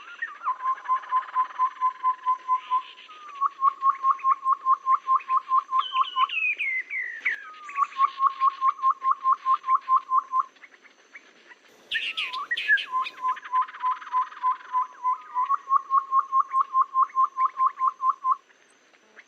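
A lure-call recording of a tepus babbler: long runs of short, even whistled notes at about five a second, broken by a few falling whistles and a short harsher call.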